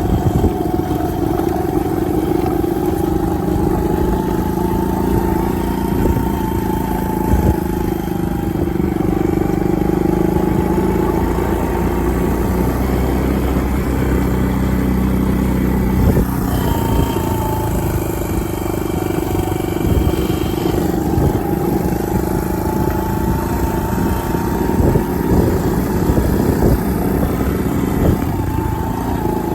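Small farm vehicle engine running steadily at low speed, its pitch rising and falling gently as the throttle changes, while it follows a herd of cows down a farm race.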